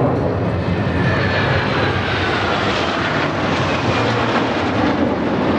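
A formation of KAI T-50B Golden Eagle jets flying overhead: a loud, steady jet roar with a faint whine that falls slowly in pitch as they pass.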